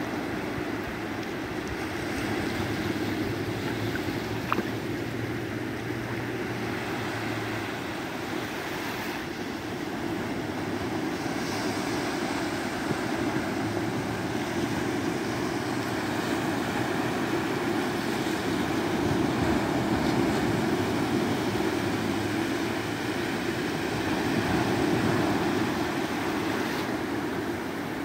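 Small waves breaking and washing up a sandy beach, a steady surf noise that swells and eases, with a faint low hum coming and going.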